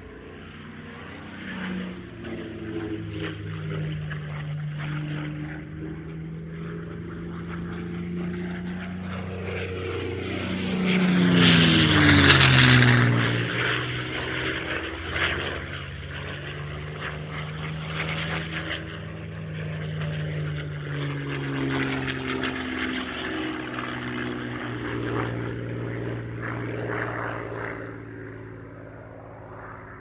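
North American B-25 Mitchell bomber's twin Wright R-2600 radial piston engines running as the plane flies past, loudest about twelve seconds in, with the engine pitch dropping sharply as it goes by. The engine sound then carries on steadily.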